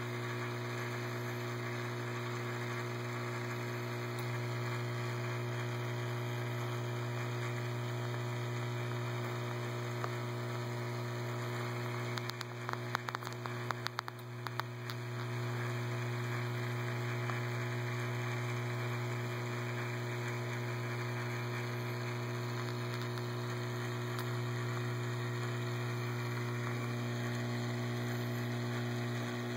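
Steady low electrical hum of running reef aquarium equipment, with a few seconds of scattered clicks and crackles partway through.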